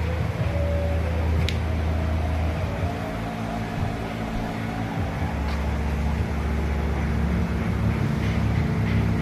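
Background music dominated by deep, sustained bass notes that change every couple of seconds, with a few faint higher tones over them.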